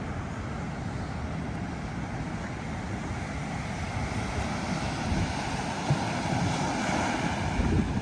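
Surf breaking and washing onto a sandy beach, with wind buffeting the microphone in low gusts. The wash grows a little louder in the second half.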